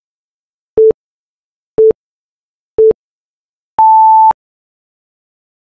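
Electronic countdown-timer beeps: three short, lower beeps a second apart, then one longer, higher beep as the countdown reaches zero, signalling that time is up.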